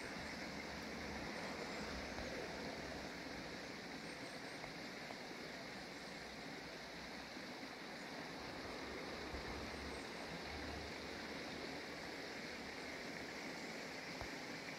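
Steady outdoor background noise, even and unbroken, with no distinct events.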